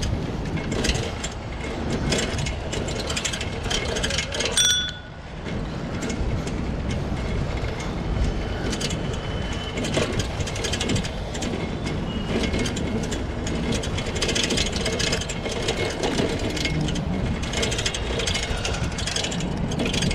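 Rental bicycle rattling and clicking as it is ridden over a paved path, with wind rushing on the microphone. A short metallic ring sounds about four and a half seconds in.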